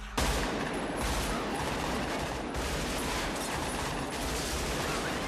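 Sustained automatic rifle fire starting abruptly just after the start, a dense run of overlapping shots with rounds striking close by.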